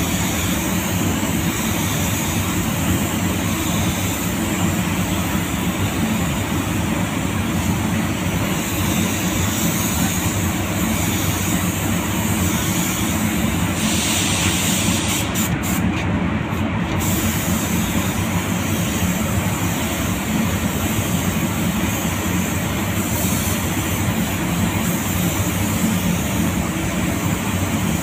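Gravity-feed compressed-air spray gun hissing steadily as clear coat is sprayed onto a car body, over a constant low rumble. About halfway through, the hiss briefly gets brighter.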